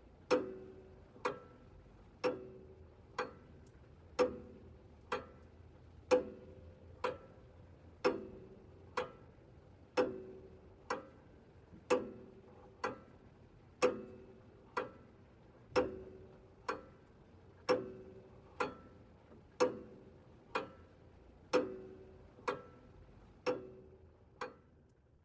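Wall clock ticking, about one tick a second, the strokes alternating louder and softer as tick and tock, each with a short ring.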